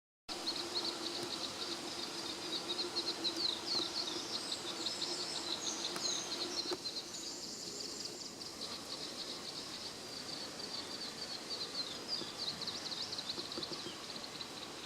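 Outdoor countryside ambience: a steady hiss with high, rapid chirping and trilling throughout, busiest in the first half.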